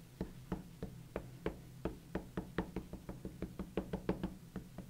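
A VersaFine black ink pad and a rubber stamp tapped together over and over to ink the stamp: a quick, uneven run of light taps, about four or five a second.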